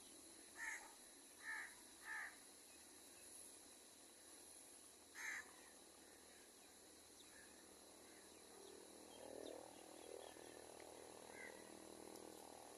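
Crows cawing: three short caws in quick succession about a second in, then a single caw about five seconds in. A lower, rougher chatter comes in from about nine seconds.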